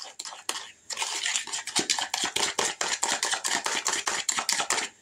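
A fork beating cornmeal batter in a mixing bowl, clicking and scraping against the bowl in quick, even strokes of about six a second, starting about a second in.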